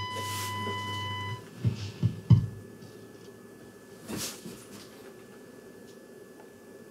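Transistor radio's speaker sounding a steady test tone from the signal generator, over a low hum, during AM alignment; the tone cuts off about a second and a half in as the trimmer is turned off the tuning point. Then come a few sharp knocks from handling the set, the loudest about two seconds in, and a brief rustle near the end.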